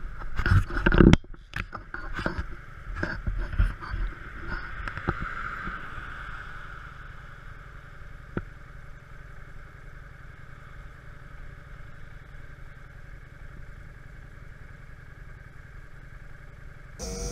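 Wind buffeting the microphone in strong, irregular gusts for about the first five seconds, then settling to a steadier low rumble. A single sharp click comes a little past eight seconds.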